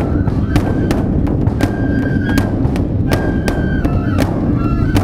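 Japanese festival drumming and flute: a huge festival drum and smaller stick-beaten drums struck with sharp, somewhat irregular hits about twice a second over a dense low rumble, while a bamboo flute plays held, high notes.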